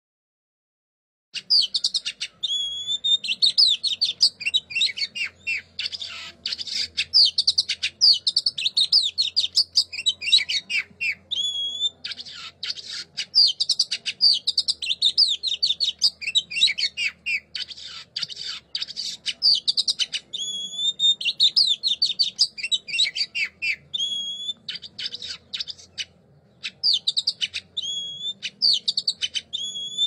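A songbird singing a fast, varied, near-continuous song of chattering notes and clear whistles. A clear whistled phrase comes back every few seconds. The song starts about a second in, with only short breaks.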